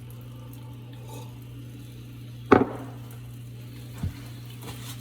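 A sharp clack of kitchenware being knocked or set down about halfway through, then a softer knock a second and a half later, over a steady low hum.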